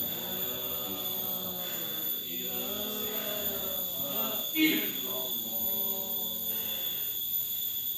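Voices chanting in long, drawn-out tones, with a steady high-pitched whine underneath. A brief sharp sound stands out about four and a half seconds in.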